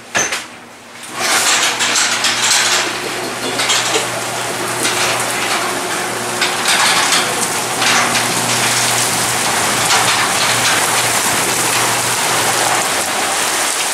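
Heavy thunderstorm rain pouring down, a loud steady hiss of rain on pavement and cars. A knock sounds right at the start, and a low steady hum runs under the rain until near the end.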